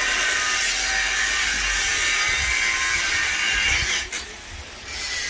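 Steady whine and hiss of a power tool doing metalwork for the truck chassis frame reinforcement. The noise falls away about four seconds in.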